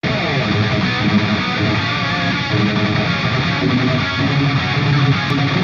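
Background music led by strummed guitar, loud and continuous.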